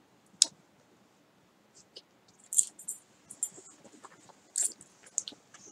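Scattered light clicks and small jingly rattles, with one sharp click about half a second in and a busier run of them in the second half: handling noise as a puppy is picked up.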